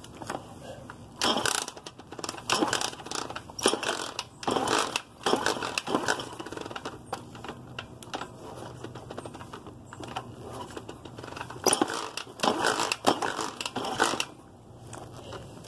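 A Sun Baja 50cc dirt bike being kick-started over and over: each stomp of the lever gives a short clattering burst as the engine turns over without catching. There are several kicks in quick succession, a pause, then a few more near the end; the bike won't start.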